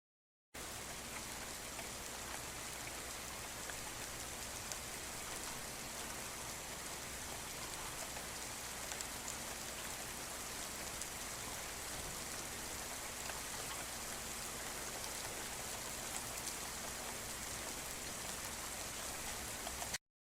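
Steady rain falling: an even hiss with scattered ticks of individual drops, starting abruptly about half a second in and cutting off just before the end.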